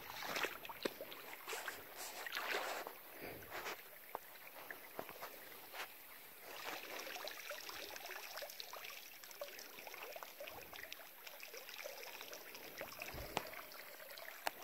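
River water sloshing and lapping around someone wading, with small irregular drips and trickles from a wet cast net being gathered; the sloshing is louder in the first few seconds.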